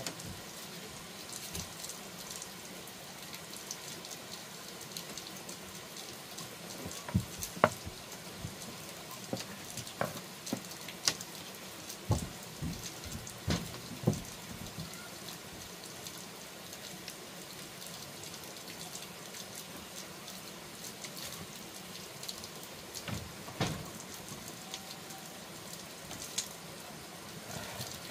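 Steady water noise with scattered sharp knocks and clatters, most of them between about seven and fourteen seconds in, and a few more near the end.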